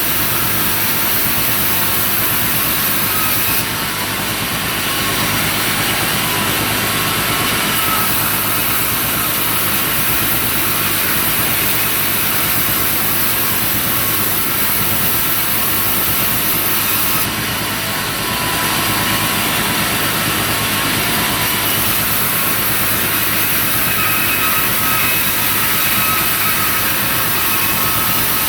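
Sawmill running without a break: a steady machine drone under a bright, hissing saw noise as the timber is worked. The sound dips briefly twice.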